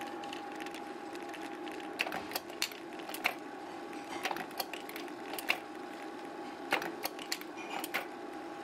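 Kodak Carousel S slide projector running steadily, its fan and motor giving a constant tone. From about two seconds in comes a series of sharp, irregular mechanical clicks as its top control buttons are pressed and the mechanism works.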